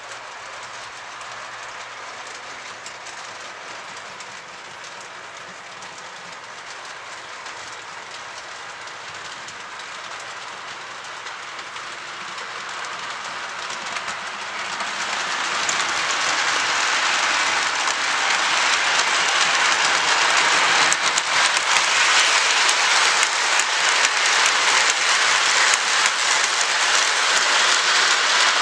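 Model train running on layout track, its wheels rolling and clicking over the rails. It grows steadily louder from about halfway through as the double-headed train comes close and passes.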